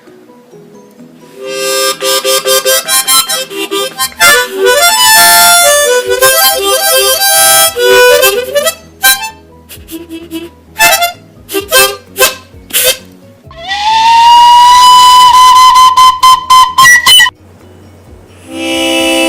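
Harmonica playing: quick runs of short notes, then a long note bent up in pitch and held for about four seconds, and a held chord starting near the end.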